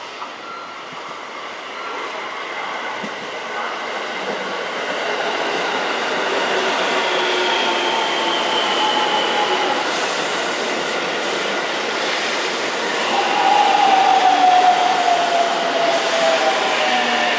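JR Central 313 series six-car electric train pulling in and braking alongside the platform. It grows louder as it nears, with a whine that slowly falls in pitch as it slows.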